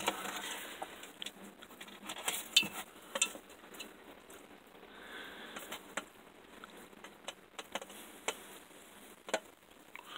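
Chickens pecking sardine pieces from a bowl, their beaks tapping against it in irregular sharp clicks.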